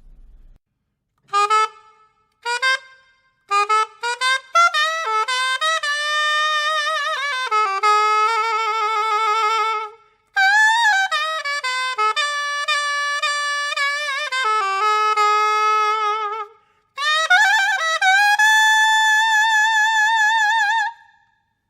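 E-flat straight sopranino saxophone playing a solo melody: two short notes, then three flowing phrases with long held notes sung through with vibrato, the last phrase ending on a long sustained vibrato note.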